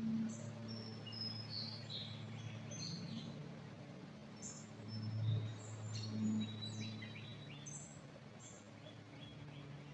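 Several birds chirping and calling in a pine forest, with short high chirps and brief whistled notes coming irregularly. Underneath is a steady low rumble that swells briefly about five seconds in.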